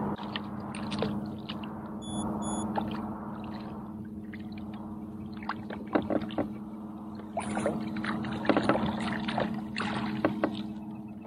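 Steady electric-motor hum from an Old Town AutoPilot 120 kayak trolling. From about halfway there are splashes and sharp knocks as a hooked kokanee salmon thrashes at the surface and is netted.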